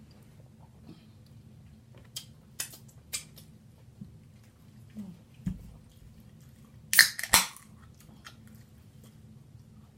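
Close-miked eating sounds of a seafood-boil meal: chewing and biting with sharp mouth clicks, and a louder cluster of crunching and smacking about seven seconds in. A faint steady low hum underneath.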